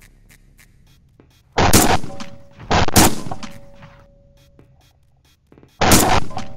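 Three shots from a Beretta AL390 Silver Mallard semi-automatic shotgun, each sharp and loud with a short decaying tail. The first two come about a second apart, the third about three seconds later.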